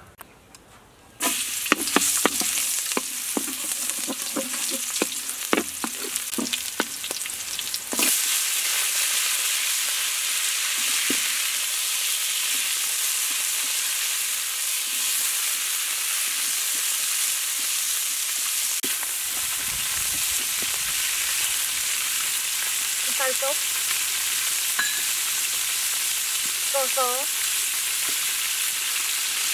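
Food dropped into hot oil in a wok, sizzling loudly at once about a second in, with a spatula clacking and scraping against the wok as it is stirred. About eight seconds in the sizzle jumps to a louder, steady hiss as water spinach is stir-fried in the wok.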